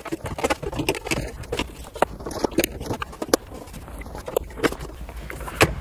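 Handling noise from a car interior: an irregular string of sharp plastic clicks and knocks as dashboard trim and wiring connectors are fitted back in place. One louder click comes near the end.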